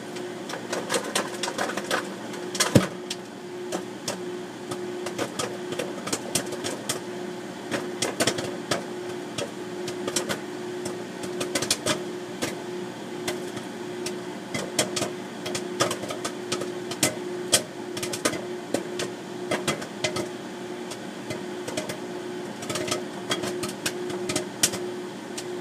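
Microwave popcorn bag popping inside a running microwave oven: many sharp, irregular pops over the oven's steady hum.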